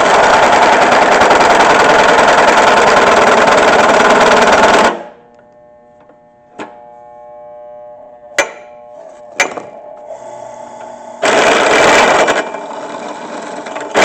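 Drill press bit cutting into a steel plate with a loud rattling chatter for about five seconds, then the press running with a quieter steady hum and a few sharp clicks, and a second, shorter spell of cutting chatter near the end.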